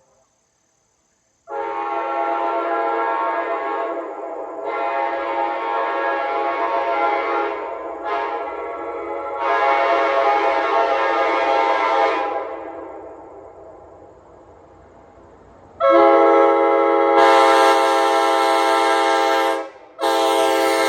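New-old-stock Nathan K5LA five-chime locomotive air horn blowing a chord in a series of blasts: two long ones, a short toot, and another long one. After a fading lull comes a louder long blast that breaks off for a moment near the end and sounds again.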